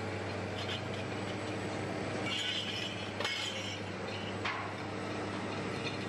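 Steady drone of a cable-logging yarder's engine. Over it come a few sharp metallic clinks and brief scraping noises from the cable rigging.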